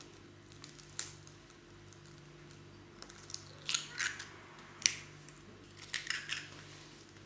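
Eggs cracked against the rim of a bowl and broken open: several short, sharp cracks of eggshell, one about a second in and a cluster of cracks and crunches from about halfway through.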